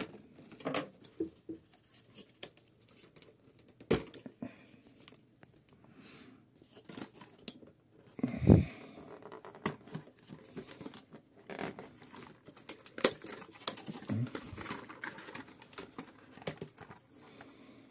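Cardboard and plastic packaging handled and opened: crinkling, tearing and rustling with scattered short clicks and taps, and one louder rustle about halfway through.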